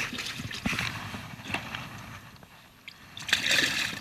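Jacket fabric rustling against the camera and hands handling a cooler, then a short burst of water sloshing about three and a half seconds in as a sunfish goes into the water-filled cooler.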